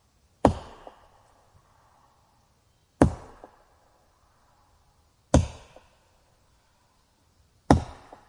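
Wood being chopped: four sharp chopping blows at an even pace, about one every two and a half seconds, each followed shortly by a fainter knock.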